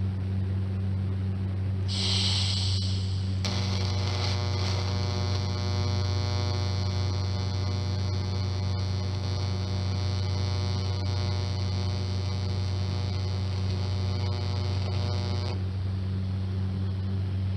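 Electric welding machine humming steadily while an exhaust muffler is tack-welded. About two seconds in there is a brief hiss, then a welding arc burns with a steady buzz for about twelve seconds before cutting off.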